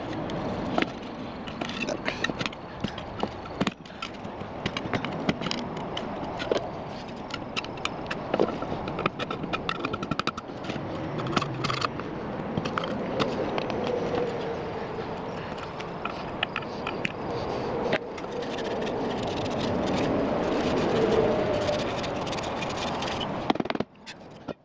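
Hand-tool repair work on a small engine: irregular scraping, clicks and metal knocks over a steady rustling, cutting off near the end.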